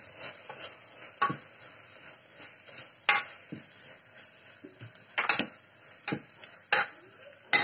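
Steel ladle stirring a thick onion-tomato masala in a metal pressure cooker, clinking and scraping irregularly against the pot's sides and bottom, over a faint steady sizzle of the masala frying.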